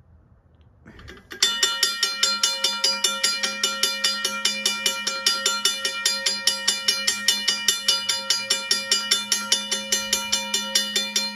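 Safetran electro-mechanical railway crossing bell, battery-powered, ringing: its striker hammers the gong in rapid, even strokes, about four a second. It starts about a second and a half in and stops near the end, the gong ringing on briefly.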